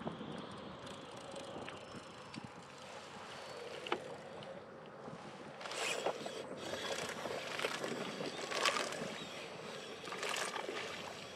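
Water sloshing and splashing around a kayak, with a sharp knock about four seconds in and several louder splashes in the second half.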